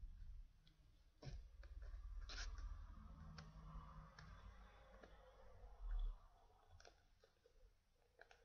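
Near silence: room tone with a few faint light clicks and one soft low thump about six seconds in.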